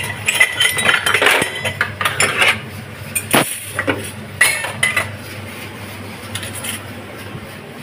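Steel dishes, cups and spoons clinking and clattering in a stainless steel kitchen sink: a quick run of knocks and short metallic rings, thinning out after about five seconds.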